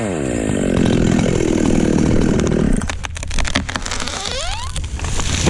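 Ported-muffler chainsaw coming off full throttle, its engine note falling over the first second and running lower and rougher until about three seconds in. A quick series of sharp cracks and knocks follows, with a brief rising whine near the end.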